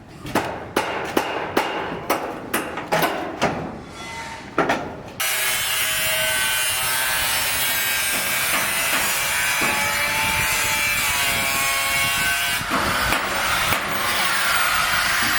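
Handsaw cutting through wood, about two or three strokes a second. About five seconds in, this gives way abruptly to a steady mechanical noise that runs on.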